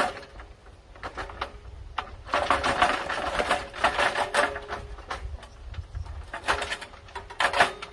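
Bursts of rapid mechanical clicking from hand-tool work on the bolts of a bandsaw mill's steel track rail: a long run a couple of seconds in and a shorter one near the end.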